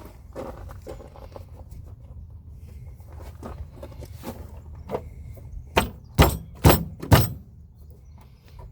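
Hand tools working on a car's LPG system fittings: light clinks and handling noises, then four sharp knocks about half a second apart, a little past halfway.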